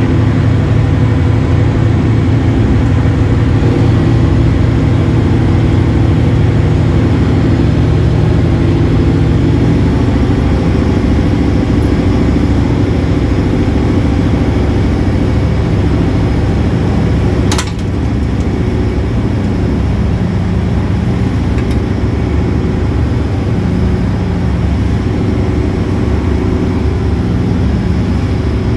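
Steady low drone of a running engine, with one sharp click a little over halfway through.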